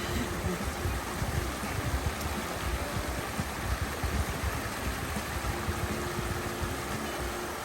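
Mountain stream of glacial meltwater running steadily.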